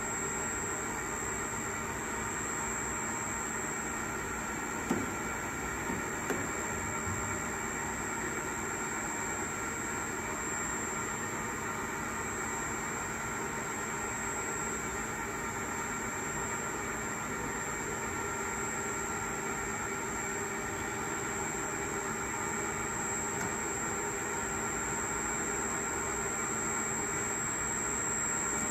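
Steady machinery hum made of several constant tones, with a high-pitched whine above it. A few light clicks about five and six seconds in.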